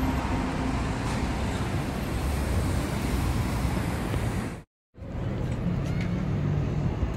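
City street ambience: a steady rumble of passing road traffic. It breaks off for a moment about two-thirds of the way in, then resumes.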